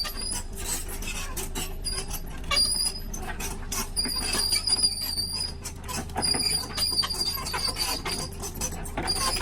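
Excavator working: a steady low engine rumble under an on-and-off high metallic squeal, with scattered knocks and clatters of the bucket against stones.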